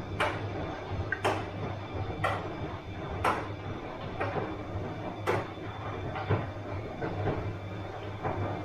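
Bosch washing machine running: a steady low hum with a sharp knock about once a second as the wash cycle turns over.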